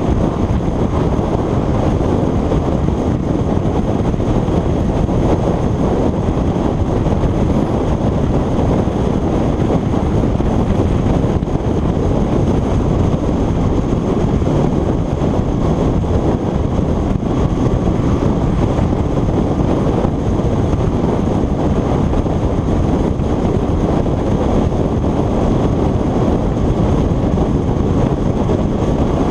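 Loud, steady wind rushing over the microphone of a camera on a moving motorcycle, a dense low rumble with no distinct engine note.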